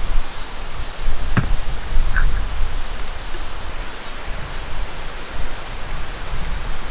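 Steady rushing outdoor ambience with a low rumble underneath, and one sharp knock about a second and a half in.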